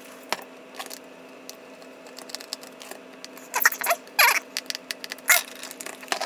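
Small Phillips screwdriver working the tiny screws of a Canon Sure Shot Supreme film camera's battery door: faint clicks and handling noise, with three short, louder scrapes between about three and a half and five and a half seconds in.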